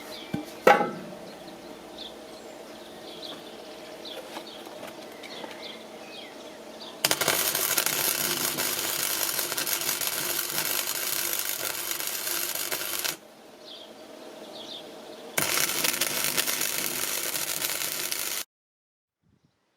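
A single sharp metal clang, then two stretches of loud, steady metalworking noise on the deep ripper, each starting and cutting off abruptly.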